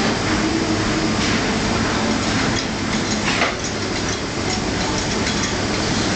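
Steady print-shop machinery running, with a few short clicks and knocks, about a second in and again around the middle, as a printing plate is clamped by hand onto the plate cylinder of an offset press.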